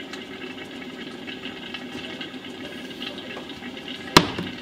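Brown liquid pouring steadily from a glass bottle into a swing-top glass bottle. About four seconds in, a single sharp click as a swing-top bottle's wire clamp cap is snapped shut.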